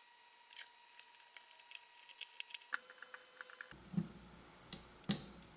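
Faint light clicks and ticks of metal barn door rail hardware being handled while two rail sections are joined, with a couple of sharper knocks near the end.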